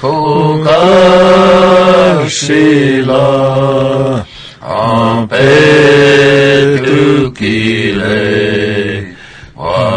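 Chanted singing: long held notes sung phrase after phrase, each phrase a second or two long, with short breaks between them.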